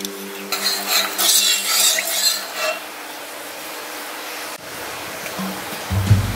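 Spoon stirring and scraping in a pot of hot milk with melting condensed milk, a rough scratchy sound lasting about two seconds from half a second in, followed by a steady hiss.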